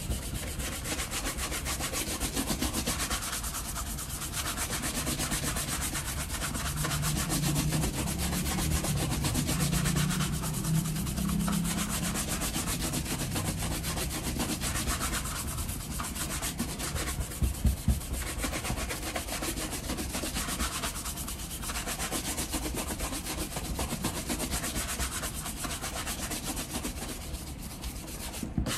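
Shoe brush swept in quick strokes back and forth over leather shoe uppers, working freshly applied shoe cream in. It makes a steady scrubbing sound with brief pauses every few seconds.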